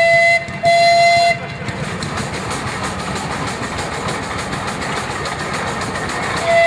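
Steam whistle of a steam road roller sounding two short blasts of one steady pitch at the start, and a third blast beginning near the end. In between there is a steady rushing noise.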